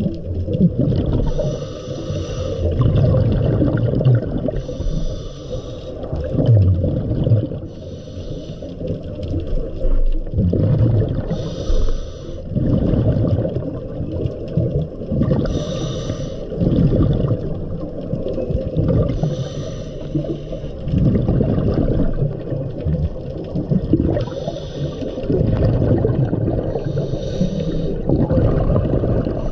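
Scuba diver breathing underwater through a regulator: a rush of exhaled bubbles about every three to four seconds over a steady low underwater rumble.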